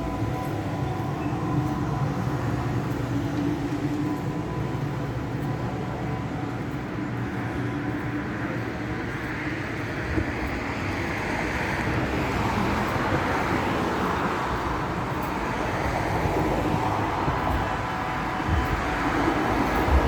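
The so-called strange noise from the sky: a loud, continuous mechanical drone with several held tones, over city background noise. It swells louder and brighter from about eight seconds in.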